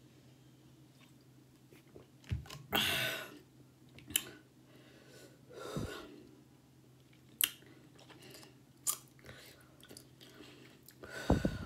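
Close-miked mouth sounds of a person chewing food, with scattered wet smacks and clicks and a few louder noisy bursts, the strongest about three seconds in and near the end.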